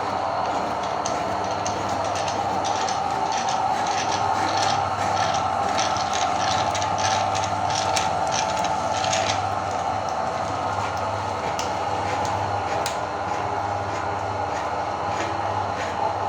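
Electric meat grinder running steadily with a motor hum, crushing chocolate with a quick run of sharp clicks and cracks that thins out after about ten seconds.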